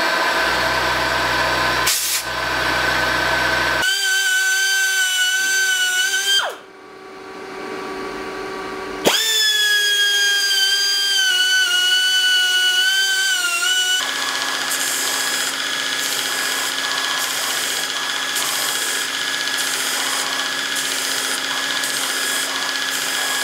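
A milling machine runs a small drill bit into a steel part held in a vice. Then a hand-held rotary grinder whines at high speed, winds down and stops about six seconds in, and spins back up around nine seconds. From about fourteen seconds a belt grinder runs while a small steel part is ground against the belt.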